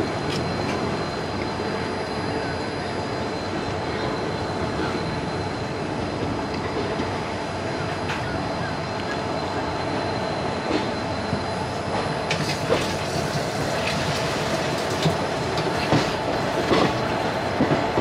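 Passenger train coaches rolling at low speed, heard from an open coach door: a steady rumble of wheels on the track. From about two-thirds of the way in, sharp clicks of the wheels over rail joints and points come more often.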